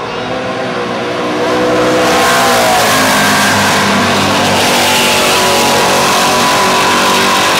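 Big-block Ford Mustang drag car at full throttle accelerating down the strip on a pass, a loud engine that swells about two seconds in and then holds.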